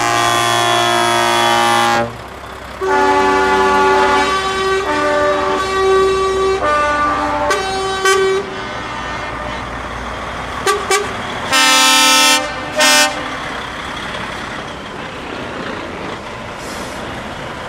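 Truck air horns sounding as a convoy of trucks goes by: long chord blasts at several different pitches for the first half, then two short toots and two more blasts, over the steady rumble of truck engines and road noise.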